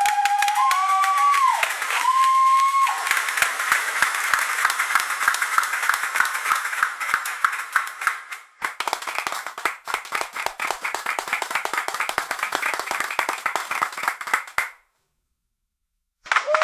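Crowd applause, many hands clapping, with a few long whoops over it in the first three seconds. The clapping dips briefly about eight and a half seconds in, cuts off suddenly near fifteen seconds, and after a second and a half of silence starts again with another whoop just before the end.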